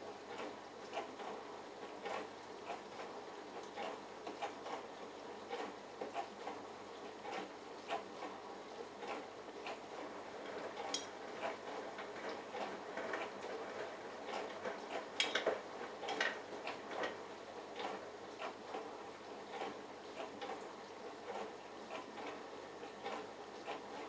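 Bosch Logixx WAS32461 front-loading washing machine in its pre-wash, the drum turning a mini load through water: water sloshing with irregular soft clicks and knocks, a few louder ones about fifteen seconds in.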